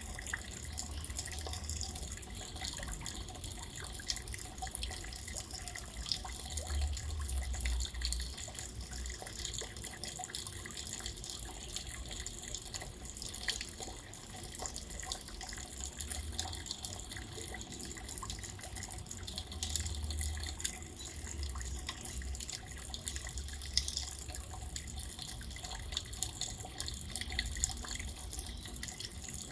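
Steady rain falling, with many small drops ticking and dripping close by over an even hiss. A low rumble swells and fades underneath.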